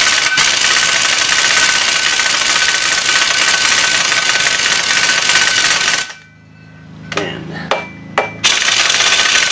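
Half-inch pneumatic impact wrench hammering on a taper-lock hub bolt: one long run of about six seconds, a few short blips, then another long run near the end. The impact is too light to break the bolts loose.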